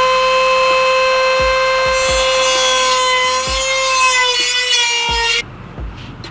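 Dremel rotary tool whining at high speed, then grinding into the part from about two seconds in, its pitch sagging slightly under the load, before it cuts off suddenly near the end.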